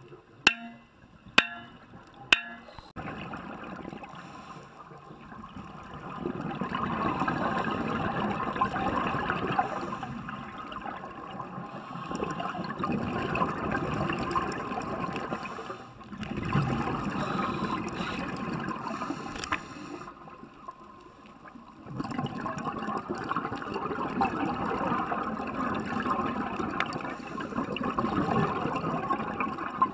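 Scuba diver's exhaled breath bubbling out of the regulator underwater: gurgling bursts of bubbles a few seconds long, with quieter gaps between breaths. A few sharp clicks in the first couple of seconds.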